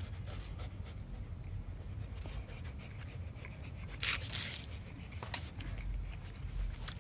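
Husky puppy panting close to the microphone, with scattered small clicks and a short breathy rush about four seconds in.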